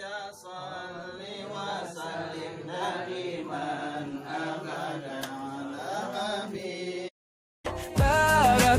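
Voices chanting a melodic religious recitation, a prayer at the close of an Islamic marriage contract. It cuts off abruptly about seven seconds in, and after a brief silence loud music with singing starts near the end.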